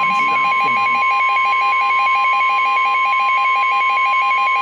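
NOAA Weather Radio warning alarm tone sounding for a severe thunderstorm warning: one loud, steady high tone with a fast pulsing flutter alongside it at roughly ten beats a second.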